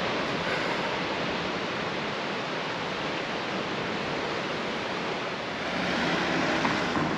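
Steady rushing of ocean surf breaking on the rocks below a sea cliff, an even wash of noise that grows slightly louder and fuller about six seconds in.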